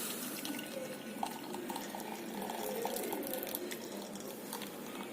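Boiled ginger water being poured from a pan through a strainer: a steady trickle of liquid.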